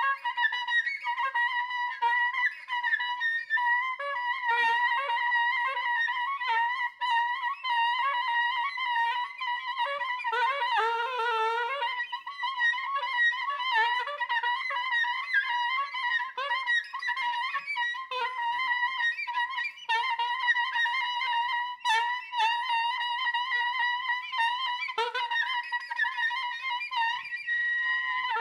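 Soprano saxophone playing a high, wavering held tone with short lower notes flickering beneath it, in a free improvisation.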